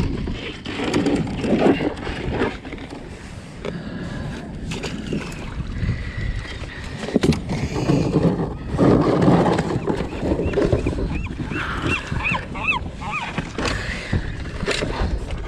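Handling noise aboard a kayak on open water: irregular rumbling, knocks and splashing. A run of short, high chirps comes about two-thirds of the way through.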